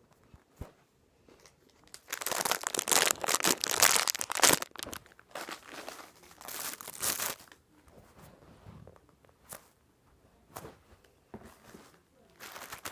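Plastic packaging crinkling in bursts as squishy toys are handled: a long burst about two seconds in, a shorter one around six to seven seconds, and another starting near the end.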